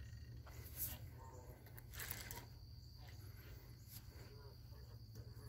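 Faint outdoor ambience: a steady low rumble of wind on the microphone, with a few brief rustles and a thin, steady high whine.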